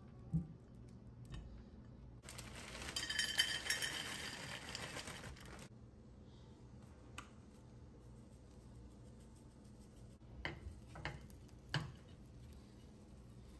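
Kitchen handling sounds while cooking: a knock at the start, then a loud hiss lasting about three and a half seconds from about two seconds in, and a few sharp clicks and clinks of utensils and dishes near the end.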